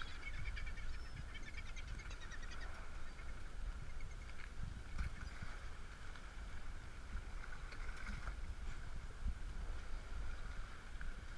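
Low, steady rumble of wind and water washing over the microphone at the sea surface, with faint animal cries from the feeding flock of seabirds and sea lions in the first few seconds.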